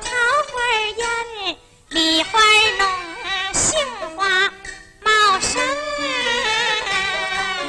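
A woman's voice singing a Pingju opera aria in gliding, ornamented phrases, the lyrics naming spring flowers (peach, plum, apricot blossom), over instrumental accompaniment. Two sharp strikes fall in the middle of the passage.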